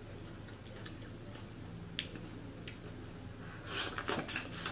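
Close-miked eating of hot food: a faint steady hum, one sharp click about two seconds in, then a cluster of quick breathy mouth sounds near the end as she breathes around a hot bite.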